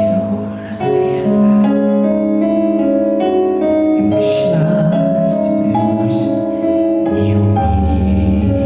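Instrumental keyboard music: sustained chords changing every second or two over a bass line that drops lower near the end, with short bright high strikes every second or so.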